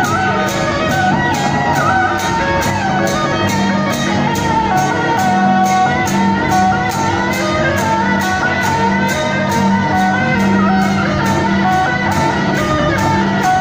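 Procession music played over a cart's horn loudspeakers: a fast, steady percussion beat under a wavering melody.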